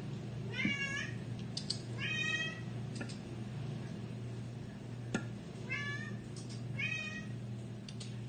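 A cat meowing four times: two short meows about a second apart, a pause, then two more about a second apart. Light sharp clicks and knocks fall between the meows, over a steady low hum.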